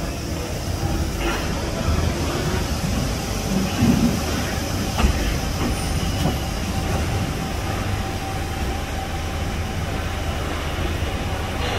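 London Underground 1992 Stock tube train running into the platform and slowing to a stop, with steady wheel-on-rail rumble. A steady whine comes in about four seconds in, and a couple of sharp knocks follow.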